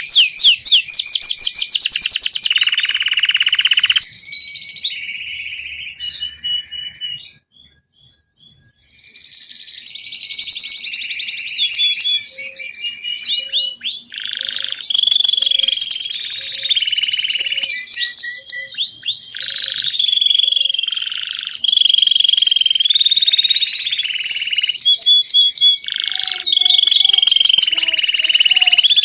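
Belgian canary singing a long, fast song of trills, rolls and whistled notes, with a short pause about eight seconds in.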